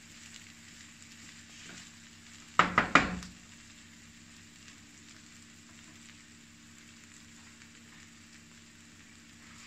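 Shrimp fried rice sizzling faintly in a frying pan as it is stirred with a spatula, with three sharp knocks in quick succession about two and a half seconds in.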